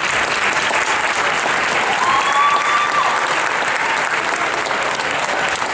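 Crowd in a gymnasium applauding steadily, with one voice giving a short drawn-out cheer over the clapping about two seconds in.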